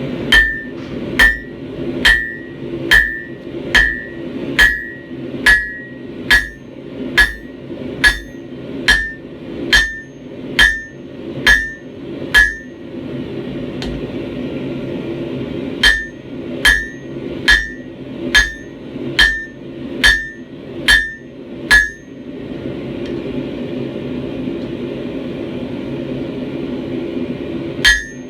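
Blacksmith's hammer forging a railroad spike on an anvil: steady ringing blows at about one a second, a run of fifteen, a short pause, eight more, then a longer pause before the blows resume at the very end. A steady low hum runs underneath.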